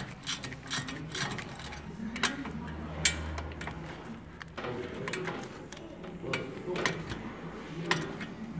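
Hand ratchet with a 7 mm hex bit clicking as a brake caliper bolt is unscrewed: irregular runs of sharp ticks with pauses between them.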